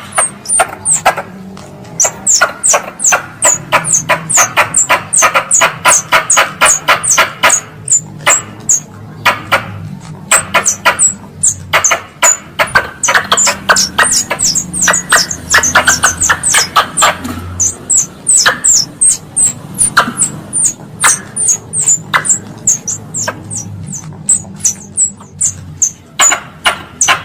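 Wild squirrel calls used as a hunting lure: sharp, high, downward-sweeping chips repeated several times a second, with a fast rattling chatter lower in pitch from about two to eight seconds in and again from about twelve to seventeen seconds.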